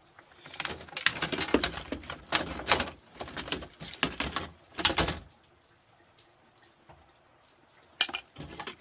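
Small hard parts clattering and knocking as they are handled and sorted: a busy run of clicks and knocks that stops about five seconds in, then one short clatter near the end.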